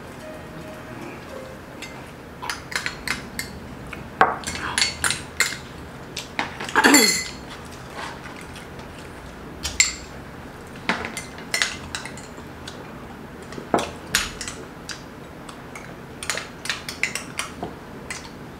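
Metal spoons clinking and scraping against small glass bowls and plates as food is scooped up, in scattered short clinks. About seven seconds in comes one longer, louder falling squeak.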